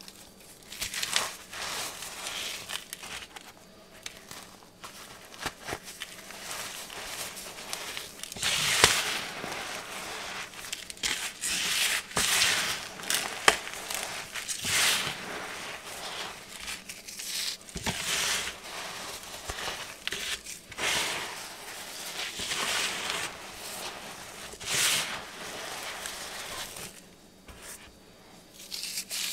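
Hands crushing and crumbling chunks of cornstarch into powder: a run of irregular crunches and crumbling, some louder than others, dying down near the end.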